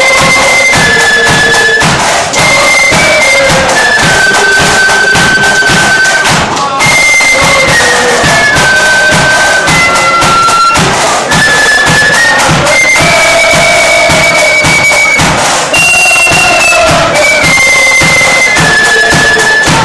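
Flute band playing a tune in unison at full volume: massed flutes carry the melody in held notes over a steady bass drum beat.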